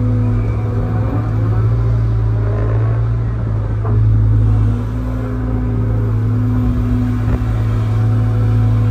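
Excavator's diesel engine running steadily under work, its drone shifting in pitch and level as it goes, with a couple of short sharp knocks about four and seven seconds in.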